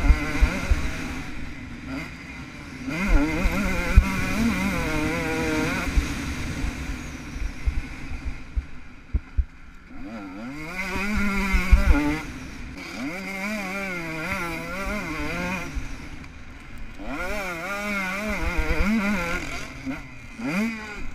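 KTM SX 125 two-stroke motocross engine revving hard in repeated surges and dropping off between them as the bike is ridden around a dirt track, with the pitch wavering over the bumps.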